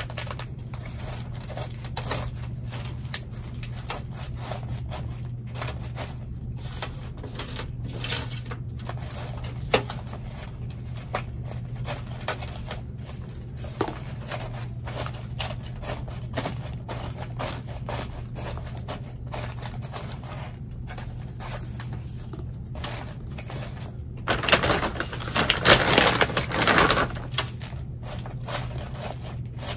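Scattered small clicks and rustles of gloved hands working an orchid in a plastic pot of bark mix, over a steady low hum. A louder rustling scrape lasts a couple of seconds near the end.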